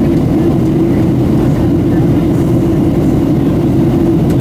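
Steady cabin noise inside a Boeing 737-700 in flight on its descent: a loud, even low drone of CFM56 engine and airflow noise with a constant hum.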